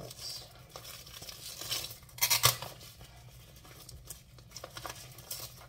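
Plastic shrink-wrap being slit and torn off a small cardboard product box: crinkling and ripping plastic in short bursts, the loudest rip about two and a half seconds in. The wrap is tough and hard to get off.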